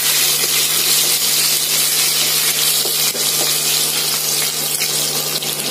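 Fresh curry leaves, garlic and crushed cumin and fennel sizzling in hot oil in a nonstick kadai, stirred with a wooden spatula. A steady low hum runs underneath the sizzle.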